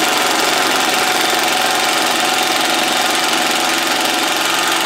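Flex 24V brushless 3-speed impact driver hammering steadily as it drives a bolt into a wooden beam: a loud, dense, even rattle of rapid impacts that cuts off abruptly at the end.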